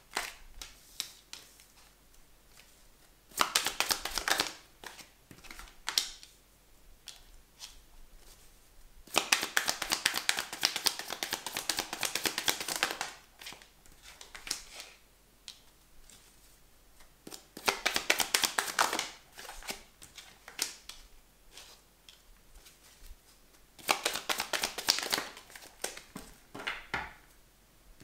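A deck of oracle cards shuffled by hand in four bursts of rapid papery clicking, the longest about four seconds. Between the bursts, single cards are laid down on a tabletop with light taps.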